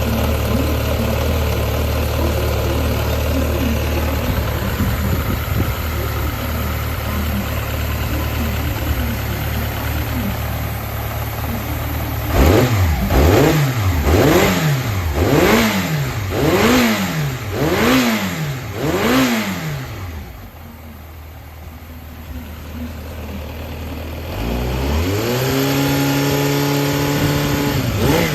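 Yamaha XJR400 (4HM) air-cooled inline-four engine running, idling steadily at first, then revved up and down about six times in quick succession. It drops quieter for a few seconds, then is held at a steady higher speed, with more revs near the end, running with no abnormal noise as the seller describes it.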